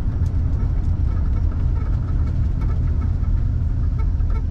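Steady low rumble of a vehicle's engine and road noise, heard from inside the cab while it drives slowly.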